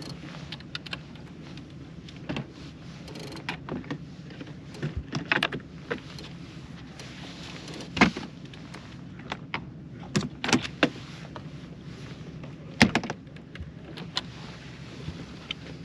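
Irregular clicks, rattles and knocks of rods and fishing tackle being handled on a boat deck, with two sharper knocks about halfway through and near the end, over the steady low hum of the boat's motor.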